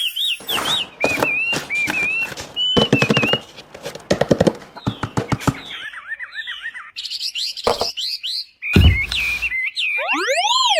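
Small birds chirping over and over in short wiggling calls, mixed with a run of sharp clicks and knocks. A heavy thud comes about nine seconds in, and a whistle rises and then falls near the end.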